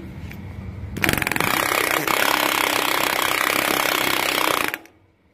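Pneumatic multi-impact hammer rattling rapidly against sheet metal, stretching a flange. The loud hammering starts about a second in and cuts off sharply near the end.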